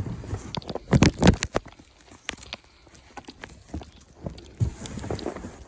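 Fresh soft snow crunching close to the microphone in short, irregular crunches, loudest about a second in and again near the end.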